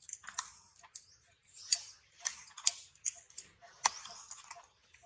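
Irregular sharp clicks and crackles, about a dozen in five seconds, with near silence between them.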